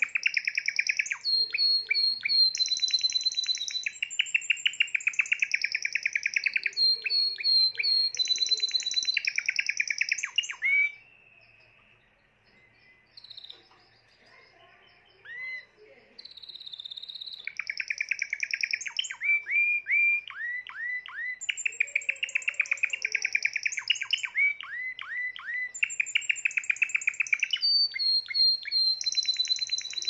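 A Spanish Timbrado canary singing in long runs of rapid trills and rolls, with higher piping notes above. A pause of about six seconds in the middle holds only a couple of faint chirps, then the song resumes.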